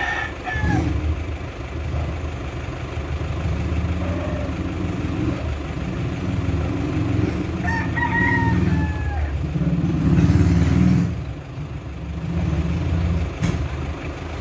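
A rooster crows once, about eight seconds in: a call of about a second and a half that drops in pitch at its end. Under it runs a steady low vehicle rumble, and a louder rush of noise comes about ten seconds in.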